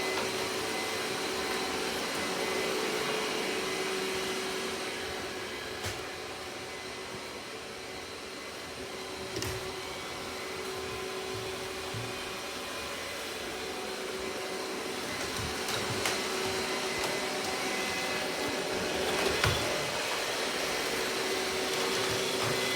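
Robot vacuum running while it cleans: a steady motor hum and whine that fades a little and comes back as it moves, with a few faint knocks.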